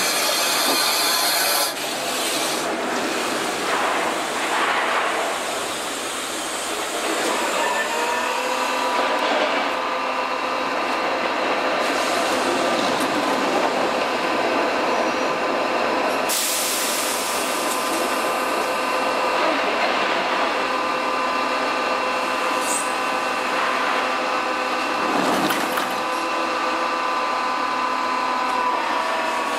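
Budapest HÉV suburban electric train, built by LEW Hennigsdorf, coming to a stop and standing at the platform. A loud hiss in the first two seconds gives way to a steady hum of its onboard equipment with several held tones. There is a short hiss about midway and a knock near the end.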